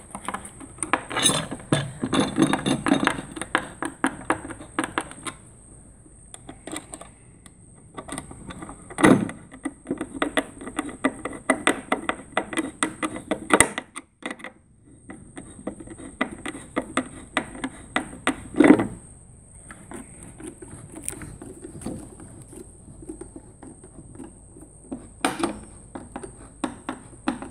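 Screws being tightened into a metal anchor-mount puck with a hand screwdriver: runs of rapid metallic clicking and scraping as the screwdriver turns, broken by short pauses, with a few louder knocks.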